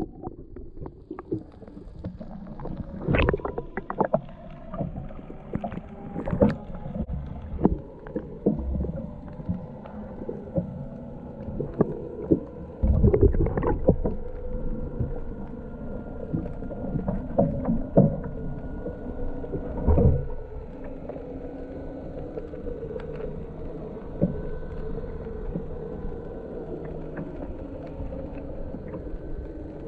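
Muffled underwater sound from an action camera sunk in the water: a low rumble of moving water with irregular knocks and clicks against the housing, and a faint steady hum in the background.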